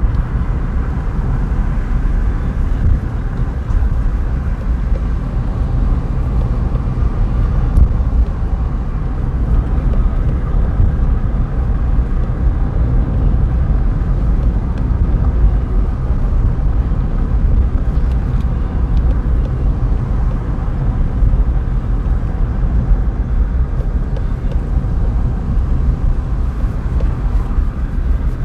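Steady engine and road noise of a car driving along, heard from inside the cabin, with a low rumble.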